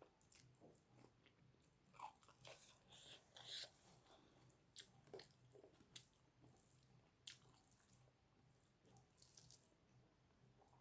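Faint close-up chewing of food, with scattered small wet clicks and crunches at irregular intervals.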